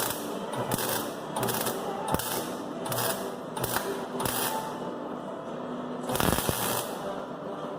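Welder firing a series of short spot-weld bursts on a car's unibody steel, a sizzling crackle repeating about every half second, with one longer, louder burst near the end.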